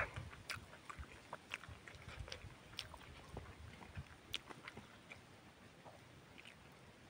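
Close-up chewing and lip smacking from a person eating rice and chicken: scattered soft, wet clicks, thinning out in the second half.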